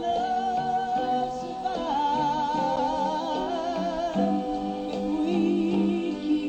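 Background music: a melody of long held notes with a wavering vibrato over sustained chords.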